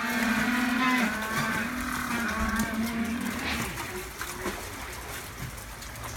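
Several Humboldt penguins making long, drawn-out calls that overlap, calling as a keeper brings food. The calls die away after about three and a half seconds.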